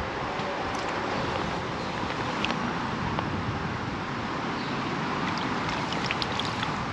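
Steady rush of flowing creek water, with a few faint ticks.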